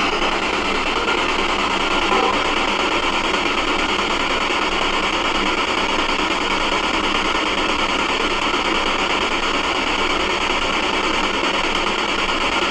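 Steady static hiss from a handheld spirit box (ghost box) used to listen for spirit voices, with a slight swell about two seconds in.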